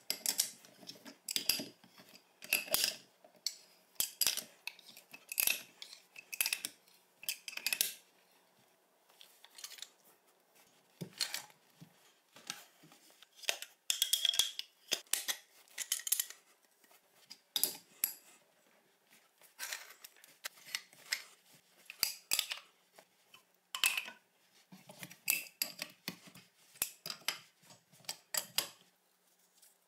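Adjustable wrench and tongue-and-groove pliers clicking and clinking against brass pipe fittings as threaded connections are tightened: an irregular run of short metallic clicks with brief pauses.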